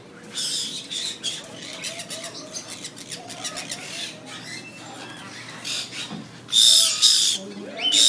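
Many caged parrots squawking and screeching, with calls overlapping throughout. The loudest, a long harsh screech, comes about six and a half seconds in.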